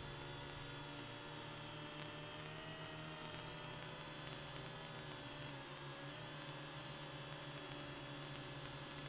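The WLToys V686G quadcopter's motors running in flight, a steady whine of several tones that waver slightly in pitch as the throttle changes, as picked up by the drone's own onboard camera.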